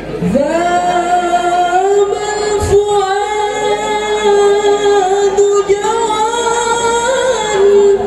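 A male lead singer of a hadroh group holding one long note of an Arabic sholawat song, sliding up into it at the start and sustaining it steadily for about seven and a half seconds through the stage microphones. There is a single low thump about three seconds in.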